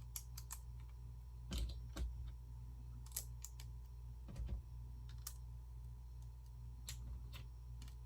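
Plastic Lego bricks clicking and knocking as pieces are handled and pressed into place, a scatter of irregular sharp clicks with a couple of duller knocks, over a steady low hum.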